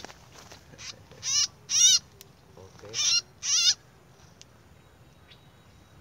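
A red-whiskered bulbul caught in a snare gives harsh, wavering distress calls as it is grabbed by hand. There are four loud screeches in two pairs, one pair about a second in and the other about three seconds in.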